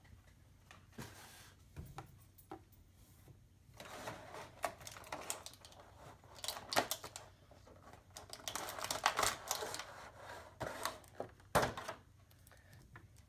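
Clear plastic bag crinkling and rustling as hands rummage through it, with scattered sharp clicks, mostly from about four seconds in.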